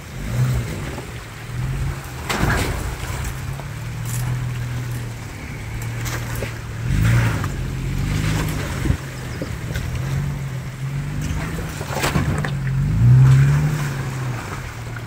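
Toyota FJ Cruiser's V6 engine running at low revs while crawling over rocks and through a shallow creek, the revs rising and falling a few times with the throttle, the biggest rise near the end. A few short sharp noises come from the tyres on the rocks.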